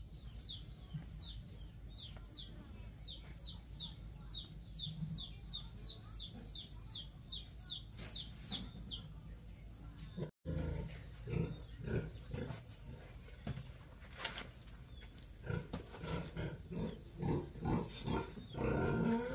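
A bird repeating a short falling chirp about twice a second for around nine seconds. After a break, an animal gives a run of short, rough low calls, one after another.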